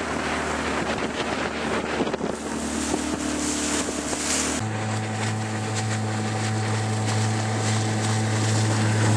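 Small boat's outboard motor running steadily, with wind buffeting the microphone. About four and a half seconds in, the engine note changes abruptly to a stronger, higher hum.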